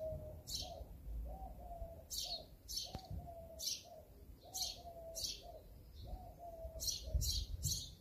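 Wild birds calling outdoors: about nine sharp, high chirps, the last three in a quick run near the end, over a repeated series of lower, short whistled notes.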